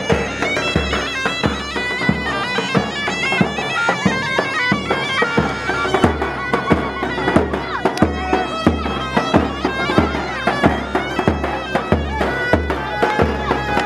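Kurdish zurna, a double-reed shawm, playing a fast, reedy folk melody over a steady low drum beat.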